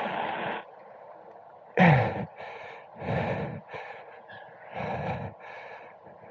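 A person breathing heavily into a helmet intercom microphone: about four hard breaths, roughly one a second, after physical effort.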